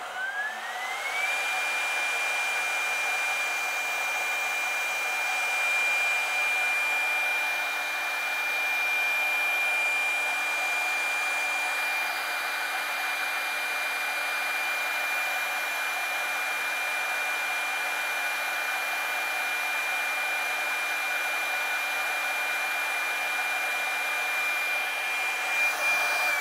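Teknomotor air-cooled CNC router spindle running at its maximum 18,000 RPM: a whine that climbs for about a second and then holds one high steady pitch, over a loud rush of air. Most of the noise comes from the spindle's built-in straight-blade mechanical cooling fan. Right at the end the whine begins to fall as the spindle is switched off.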